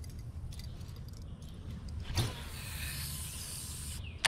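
Baitcasting reel cast: a click about two seconds in, then the spool spinning as line pays out for nearly two seconds, stopped sharply, and another click near the end as the reel is engaged. A low steady rumble runs underneath.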